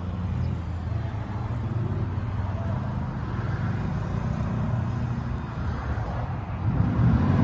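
Russian Mechanics RM 800 ATV engine running at a distance, a low uneven drone that grows louder near the end as the quad comes closer.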